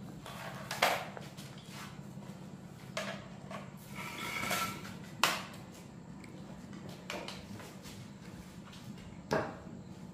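A few scattered light knocks and clatters from footsteps and from an angle grinder and its cord being picked up and carried across a concrete floor, over a faint steady low hum.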